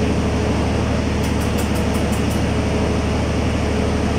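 Steady low machine hum, like a fan or air cooler. A little over a second in comes a quick run of about seven short, high lip-kissing squeaks, made to call a pet bulbul perched on a finger.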